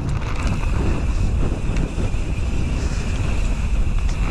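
Wind rumbling on an action camera's microphone during a mountain-bike ride, with a steady high hum above it and a few faint clicks.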